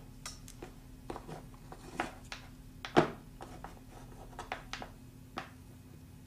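Scattered light clicks and taps of small tools and metal connector parts being handled at a soldering bench, with one sharper knock about three seconds in.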